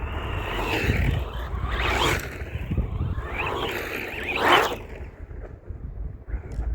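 Electric RC rally car driving over bumpy ground, its motor whine rising and falling with several quick bursts of throttle. Wind rumble on the microphone underneath.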